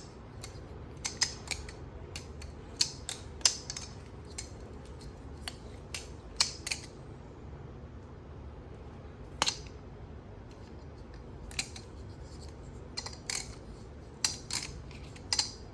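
Squiddy clone balisong, a very light butterfly knife, being flipped by hand: irregular sharp clacks as the handles and blade swing open and shut and knock together, some in quick runs, with a pause of a couple of seconds near the middle.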